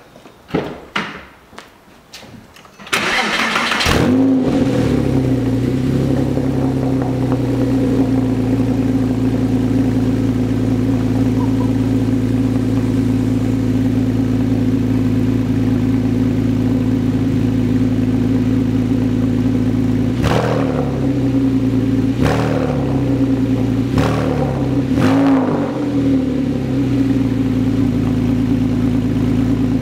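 Straight-piped Porsche 997 Carrera S 3.8-litre flat-six, its mufflers replaced by bypass pipes, cold-started: it cranks and fires about three seconds in, then settles into a steady cold idle. About twenty seconds in, four quick throttle blips rise and fall back to idle.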